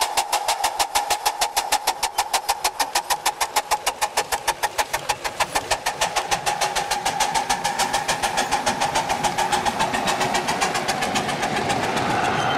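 Live steam locomotive's exhaust chuffing in a quick, even beat as it works hard up the grade, with a steady ringing tone underneath. Near the end the beats blur into a steadier rumble of a train passing.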